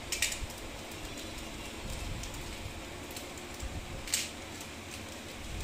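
Brief crinkling clicks of a candy wrapper and M&M's candies being poured into a small plastic candy dispenser, twice: just after the start and about four seconds in.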